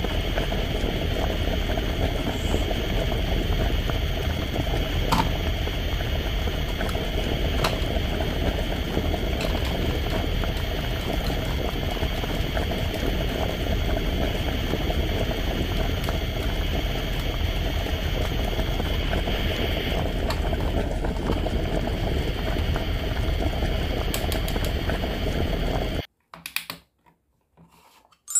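Water boiling in a cooking pot, a steady even bubbling hiss that stops suddenly a couple of seconds before the end.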